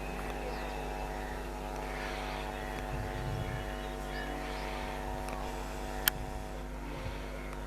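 Electric multiple-unit local train humming steadily with a stack of even electrical tones, with faint voices and one sharp click about six seconds in.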